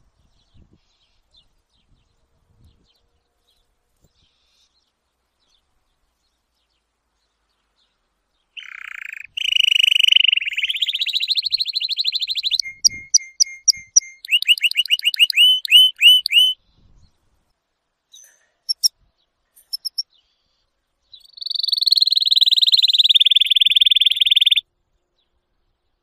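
Domestic canary singing: after several seconds of near silence, a loud run of fast trills and rapid repeated down-slurred notes, a few short single chirps, then a long fast trill that cuts off shortly before the end.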